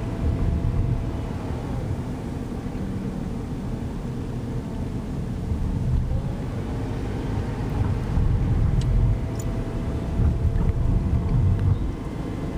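Car driving on a city street: a steady low rumble of road and engine noise that swells a little about halfway through and again near the end.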